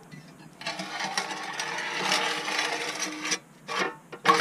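Welded steel fire-feed tray being slid into a rocket stove's brick opening, scraping and rattling for a couple of seconds, then two short knocks near the end as it is pushed home.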